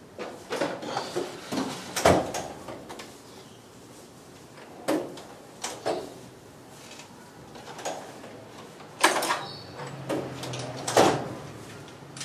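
Scattered sharp knocks and clinks of hand tools against metal, coming in a few clusters, loudest about two seconds in and again near nine and eleven seconds.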